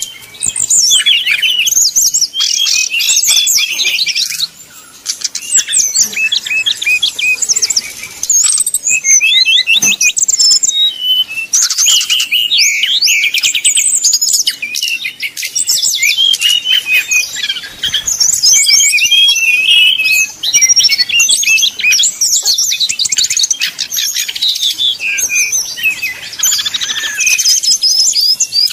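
Brown-chested jungle flycatcher (sikatan rimba dada coklat) singing loudly in fast, dense runs of varied high trills and chirps, with only brief pauses about four and eight seconds in.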